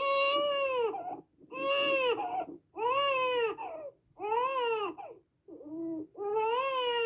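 Infant crying in a string of about six wails, each roughly a second long and arching up and then down in pitch, with brief pauses for breath between them.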